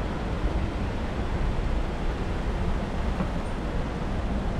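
Steady street ambience: a low, even rumble of passing traffic, with no distinct events.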